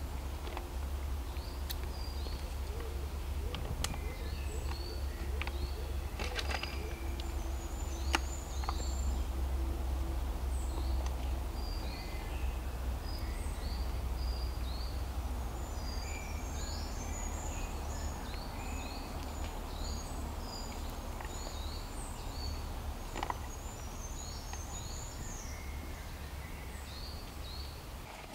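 Woodland birdsong: many short high chirps and trills from small birds, scattered throughout, over a steady low rumble.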